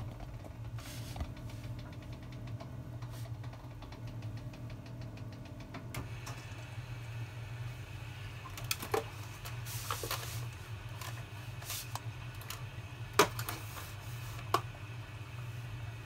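Miele W2241 washing machine early in a wash cycle: a steady low hum with fast, even light ticking. From about six seconds a hiss sets in, with several sharp clicks; the loudest comes a little after thirteen seconds.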